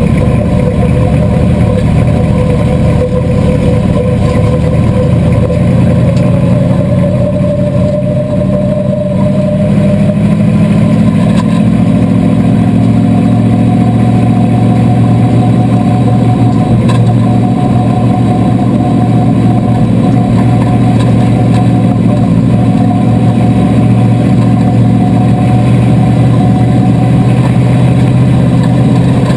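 Chevrolet 305 small-block V8 of a bomber-class stock car, heard from inside the stripped cockpit, running at low track speed; about a third of the way in it picks up and then holds steady at higher revs.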